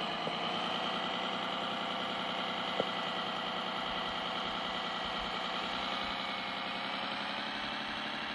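Kyosho Blizzard radio-controlled tracked snow vehicle running: a steady motor and gear whine with thin high tones, and one sharp click about three seconds in.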